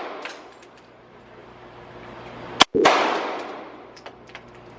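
A single gunshot about halfway through: a sharp crack, the sound dropping out for an instant, then a long echoing decay. A few faint clicks follow near the end.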